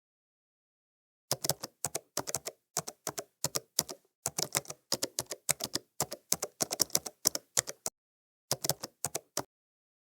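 Rapid key clicks of typing, several a second, starting a little over a second in, pausing briefly near eight seconds and stopping shortly before the end.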